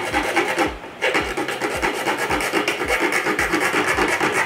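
Hacksaw blade cutting through a motorcycle's plastic fairing panel in quick back-and-forth strokes, about two a second, with a brief pause just under a second in.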